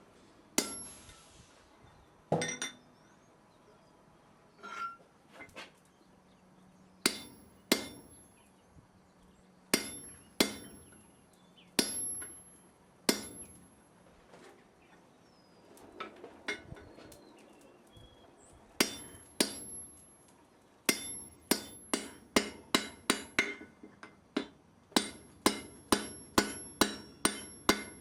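Blacksmith's hammer striking metal on an anvil, each blow ringing briefly. The blows are spaced out at first, then settle into a steady run of two or three a second from about three-quarters of the way in.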